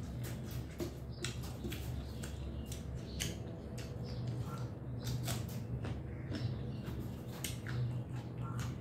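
Close-up mouth sounds of a person chewing food: irregular wet clicks and smacks, a few every second, over a steady low hum.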